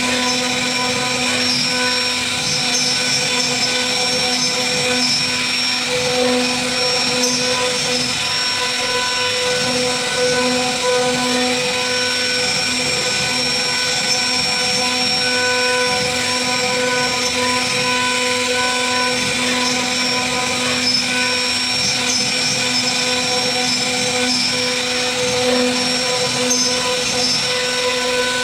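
CNC router spindle running as it carves a wooden relief panel: a loud, steady high whine made of several held tones over a hiss, with no pauses.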